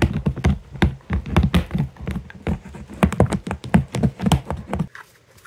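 A large-breed puppy gnawing on the edge of a clear plastic clothes storage case: quick irregular clacks and scrapes of teeth on hard plastic, stopping about five seconds in. The pup is teething, and growing teeth may be making its mouth itchy.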